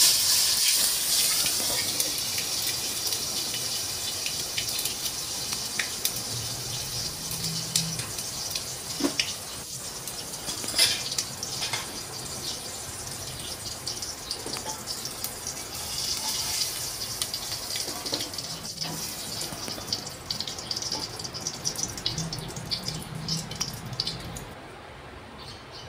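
Food bubbling and sizzling in a pan under a glass lid: a steady hiss with scattered small crackles and pops, slowly getting quieter and dropping away sharply near the end.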